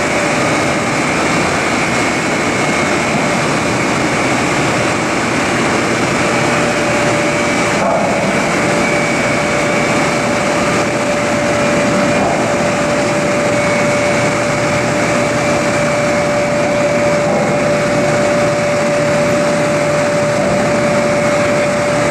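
Dockside container gantry crane's machinery running: a steady mechanical noise with a constant whine over it.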